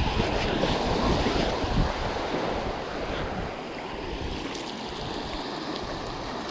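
Small surf washing up on a sandy beach, with wind buffeting the microphone; the wind gusts are strongest in the first couple of seconds, then ease.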